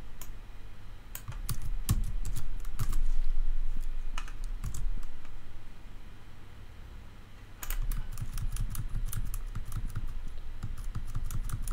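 Typing on a computer keyboard: fast runs of key clicks in two spells, with a short pause in the middle.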